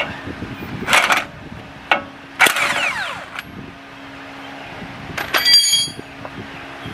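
Impact wrench with a 13/16 socket loosening the castle nut on a Ford F-150's outer tie rod end, run in several short trigger bursts, about a second in, around two and a half seconds and again near five seconds, each winding down when released.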